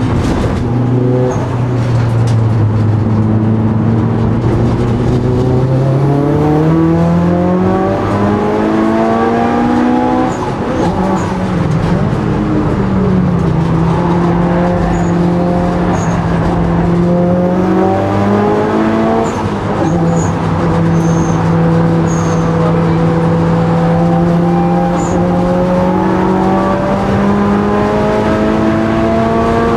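Mitsubishi Lancer Evolution VIII's turbocharged four-cylinder engine, heard inside the cabin while racing on track. It holds low revs at first, climbs for a few seconds, drops sharply about ten seconds in, holds steady, dips briefly, then climbs slowly through the last ten seconds.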